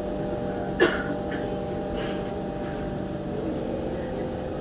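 Steady hum of a stationary MRT train's onboard equipment, several constant tones under an even noise, with one short sharp sound about a second in.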